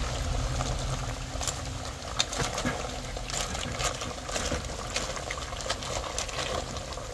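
A pot of curry crab simmering, its thick gravy cooking down: a steady hiss with scattered pops and crackles.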